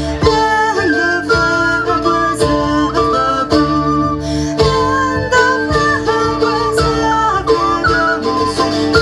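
Live folk band playing: a whistle-like wind melody over a plucked mandolin-type instrument and electric bass guitar, with a steady held drone underneath.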